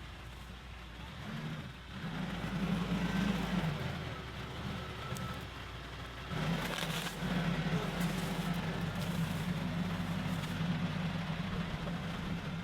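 TYM T574 tractor's diesel engine running, its note coming up about two seconds in, easing, and coming up again from about six seconds in as the tree shear attachment is worked.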